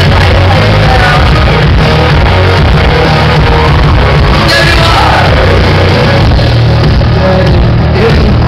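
Loud live Victorian industrial rock band playing through a club PA, with a woman singing over heavy bass and drums.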